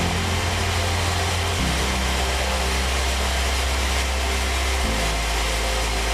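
Sawmill machinery running steadily, with background music whose low held notes change abruptly twice.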